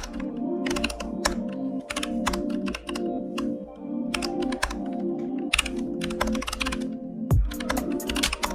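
Computer keyboard typing: quick keystrokes in uneven runs, with background music playing underneath.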